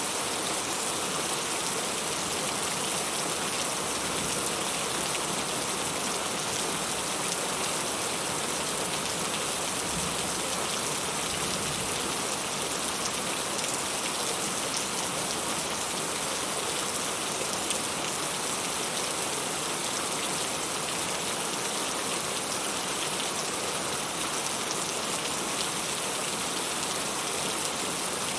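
Heavy rain falling steadily, a dense, even hiss of many drops hitting a surface, without let-up.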